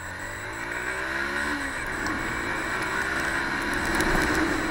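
Motorcycle engine accelerating: the revs climb for about two seconds, then drop at a gear change, and the bike pulls on with the engine and wind noise growing louder as speed builds.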